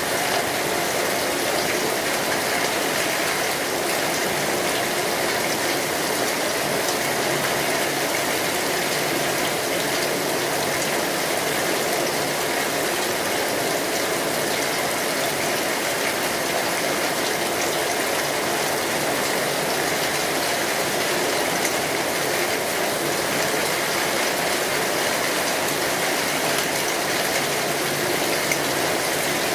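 Steady heavy rain falling on an umbrella, heard from underneath it: a dense, even hiss of drops that holds at one level throughout.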